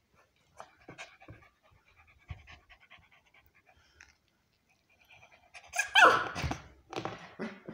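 American Bully puppy breathing hard and snuffling close to the microphone, with short faint sounds at first and a loud cluster of breathy sounds about six seconds in.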